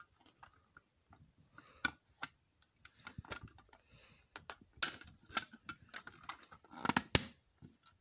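Fire-Lite BG-12 pull station being handled and reset by hand: a scatter of sharp plastic clicks and knocks from its handle and housing. The loudest are about five seconds in and a close pair near seven seconds.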